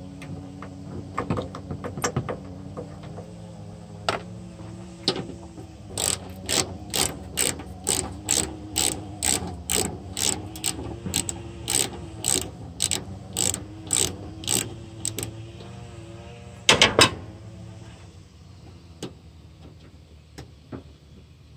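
Hand ratchet with a 10 mm socket clicking as it backs out headlight mounting bolts, first in scattered clicks, then in a steady run of about two clicks a second. Near the end come three loud knocks in quick succession.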